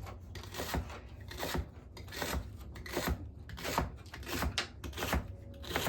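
A string of short knocks and scrapes, often in pairs, about one pair a second: something being handled and set down on a hard surface.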